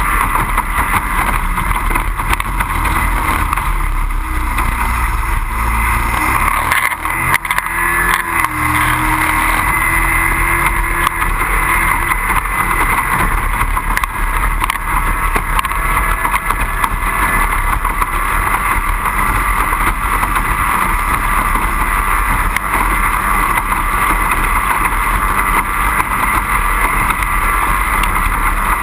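Racing powerboat with a 25 hp outboard engine running at racing speed, a steady unbroken drone.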